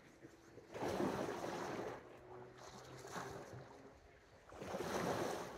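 Small waves washing against a stone breakwater, two surges, each swelling and fading over about a second, one about a second in and one near the end.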